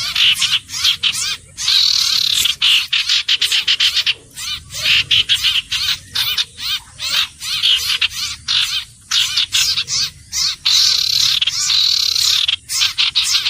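Iora calling: rapid, high chattering notes repeated in bouts, with short pauses between them.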